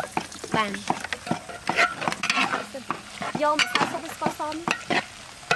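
Noodles and vegetables being stir-fried: a spatula scraping and clicking against the pan over steady sizzling. Short pitched calls or voices sound in the background.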